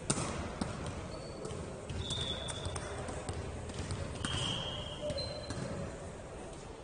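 Sports shoes squeaking on an indoor court floor, three short high squeaks about two seconds in and again around four and five seconds, among a few knocks of a ball hitting the floor.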